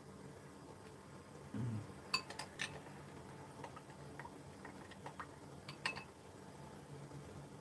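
A spoon clinking lightly against a ceramic soup bowl a few times as broth is stirred and tasted, over a faint steady low hum.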